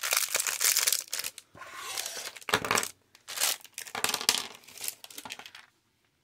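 Small plastic packaging bag crinkling and rustling in irregular bursts as it is handled and opened, stopping shortly before the end.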